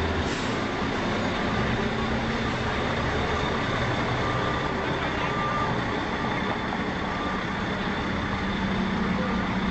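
Engine of a large police truck running steadily as it drives.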